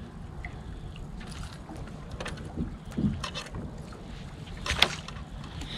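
Wind on the microphone and a low rumble from a boat sitting on open water, with a few short clicks and knocks as a just-caught fish is lifted aboard by hand; the sharpest knock comes near the end.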